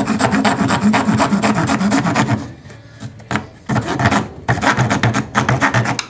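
Small folding pocket-knife wood saw with double-set teeth cutting through a wet, green half-inch sapling in quick rasping strokes. It pauses briefly about two and a half seconds in, then saws on until the piece is cut through.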